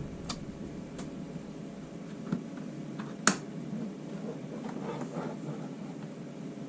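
Scattered single key clicks on a Logitech G910 mechanical keyboard with Romer-G switches, a few separate presses rather than continuous typing, the sharpest a little over three seconds in.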